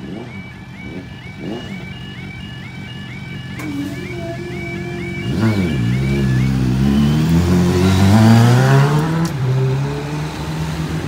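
Automatic half barrier level crossing's warning alarm sounding as a fast repeating warble, about three cycles a second, while the barriers rise; it stops about six and a half seconds in. From about five seconds in, motorcycle engines rev and pull away across the crossing, loudest about eight seconds in.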